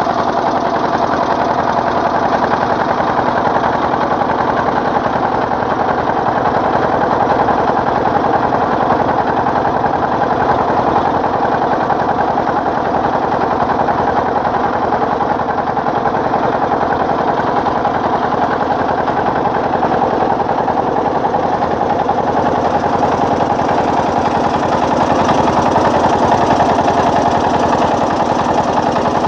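Small river motorboat's engine running steadily under way, a fast even clatter, with water and wind noise underneath.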